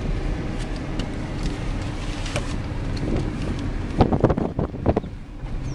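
Car cabin noise while driving slowly, a steady low rumble of engine and tyres with wind buffeting the microphone. A quick run of sharp knocks comes about four seconds in.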